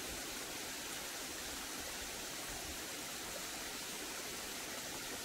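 Steady rushing of a stream: an even wash of water noise with no distinct events.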